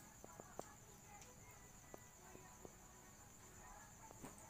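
Near silence: quiet room tone with a faint, steady high-pitched whine and a few soft clicks.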